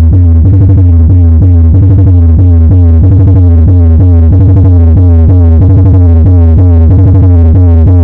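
Electronic dance music played very loud through an 18-inch 1200-watt speaker for a sound check, with a heavy, steady bass under a fast, even pulse.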